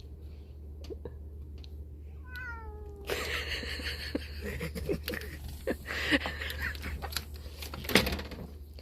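Domestic kitten meowing once, a short call falling in pitch, followed by several seconds of rustling and scuffling with clicks and a couple of sharp knocks.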